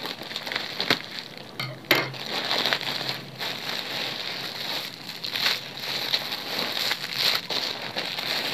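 Thin black plastic shipping bag crinkling and rustling as it is cut open with scissors and pulled apart by hand, with a sharp click about two seconds in.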